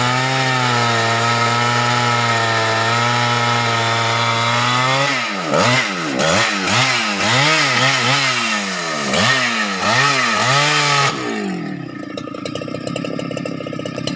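Husqvarna 395 XP two-stroke chainsaw held at full throttle as it cuts through a tamarind log. About five seconds in, once through the cut, the engine is revved up and down several times. Near the end it drops back to idle.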